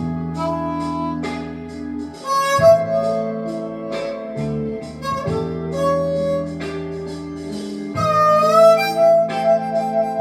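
Harmonica playing a blues melody in held notes, with a bent note about eight seconds in, over a lower accompaniment.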